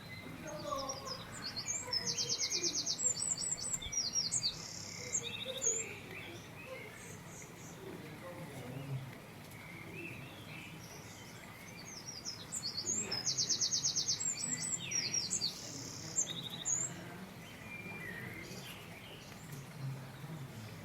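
A songbird singing: two matching phrases of quick chirps and a rapid high trill, about ten seconds apart, over faint outdoor ambience.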